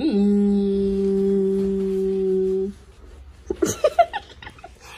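A woman's voice singing one long held low note, sliding down into it at the start and stopping after nearly three seconds; a few short vocal sounds follow near the end.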